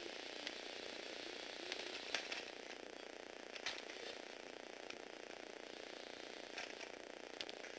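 Tamiya universal gearbox motors of a small remote-controlled Lego Technic car whirring steadily, with a few sharp clicks of the plastic gearing, the loudest about two seconds in and near four seconds.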